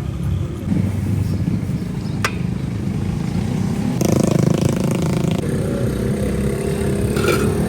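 Street traffic: a steady rumble of passing vehicle engines, with a buzzier engine, like a motorcycle's, passing close about four seconds in. A single sharp click is heard about two seconds in.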